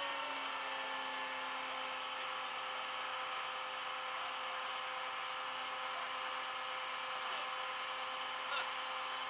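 A steady mechanical whine holding one pitch, a motor or engine running at constant speed.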